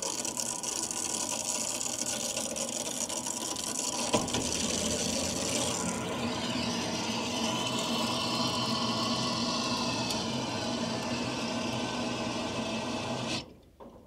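Mains water rushing through an open filling-loop valve and braided hose into a Daikin heat pump's heating circuit, raising the system pressure: a loud steady hiss with a whistling tone that shifts in pitch. It cuts off suddenly near the end as the valve is closed.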